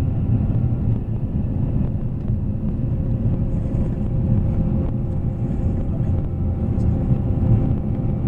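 Scania K440 coach's inline-six diesel engine running steadily at cruising speed, a constant low rumble with no revving up or down.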